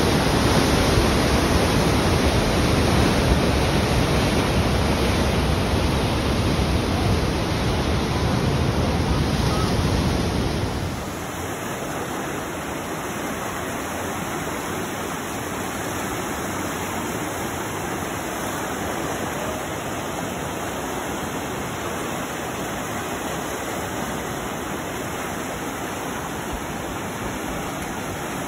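Steady rush of white water from a glacial mountain river pouring through a narrow rock canyon. About ten seconds in it drops to a quieter, thinner rush.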